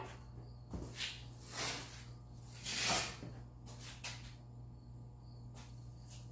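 A few short scuffing, rustling swishes from a person moving about, the loudest about three seconds in, over a steady low hum.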